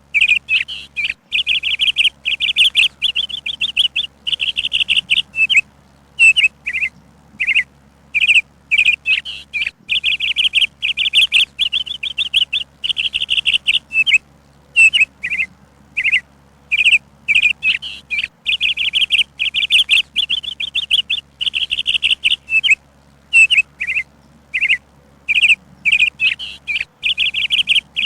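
A songbird chirping over and over: short chirps and fast trilling phrases, repeating every second or two.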